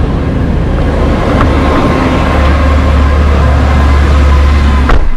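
Loud, steady low rumble of road traffic and vehicle engines. It ends about five seconds in with a sharp knock, a car door shutting.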